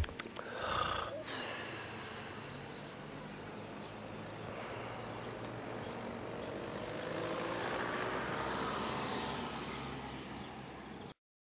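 A few brief rustles and knocks at the start, then steady open-air background noise in which a passing vehicle swells up about seven seconds in and fades again. The sound cuts off abruptly near the end.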